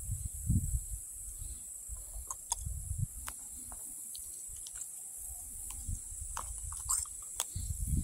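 Handling noise while a small catfish is held and unhooked: scattered light clicks and taps, with bursts of low rumble on the microphone. A steady high insect drone, like crickets, runs underneath.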